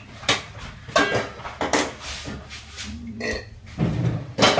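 Kitchen clatter: several sharp knocks as a metal non-stick pan is handled and set down on a gas stove.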